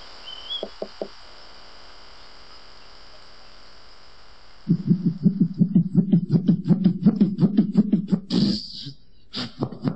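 Human beatboxing, all mouth sounds. A few faint clicks come first. About halfway in, a low buzzing hummed bass line starts, pulsing under quick hi-hat-like clicks at about four to five a second. Near the end comes a loud hissing snare-like hit, then sparser clicks.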